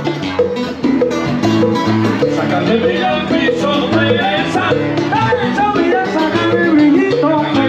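Salsa music playing steadily, with a singer over a band.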